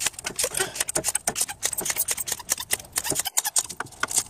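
Ratchet wrench with a socket on a spark plug, its pawl clicking quickly and unevenly as the handle is worked back and forth. The plug is stuck tight, which the mechanic takes for rust seizing it in place.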